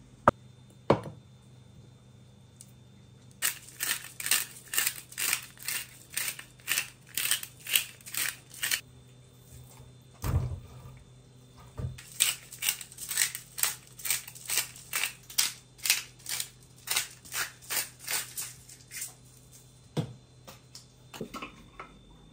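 Glass spice jar shaken over a chicken in quick, rhythmic shakes, about three a second, in two long runs. A few dull thuds fall between the runs.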